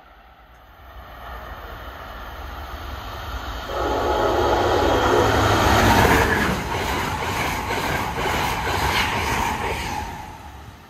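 High-speed passenger train passing through: the rushing sound builds from about a second in, is loudest around the middle with a quick, rhythmic clatter of wheels over the rails, and dies away near the end.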